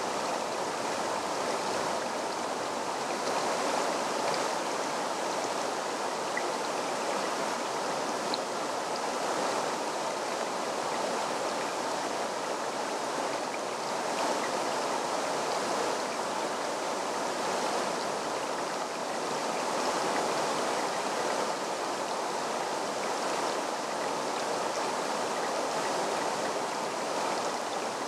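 A shallow stream running over stones: a steady rush of water.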